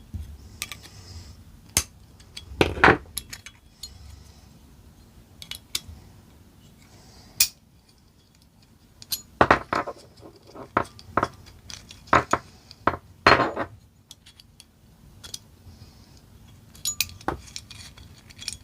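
Pliers and small steel parts of an AK trigger guard and magazine catch clicking and clinking as the catch's spring and cross pin are worked loose: irregular sharp clinks and taps with quiet gaps between, several louder ones in the middle.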